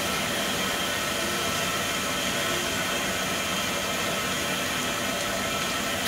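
Water rushing from a water crane into the tender of an FS 625 steam locomotive, a steady even hiss.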